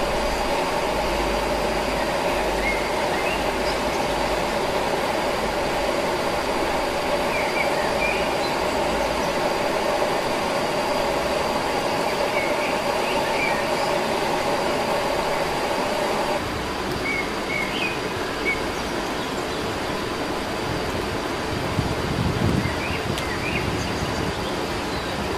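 Steady rushing background noise with scattered short bird chirps. The noise drops abruptly about sixteen seconds in.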